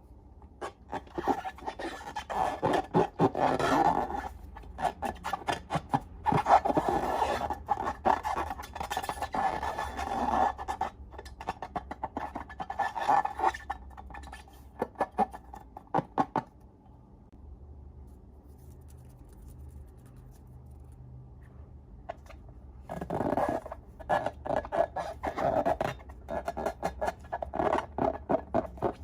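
Slime being squeezed and worked by hand, giving bursts of sticky, crackling clicks and squishes. It stops for several seconds a little past halfway, then starts again.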